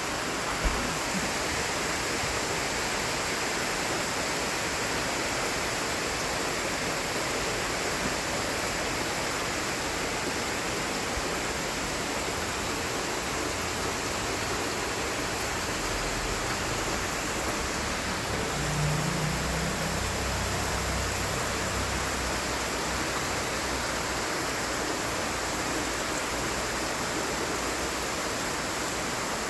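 Steady rain falling, an even hiss throughout. A brief low rumble comes about two-thirds of the way in.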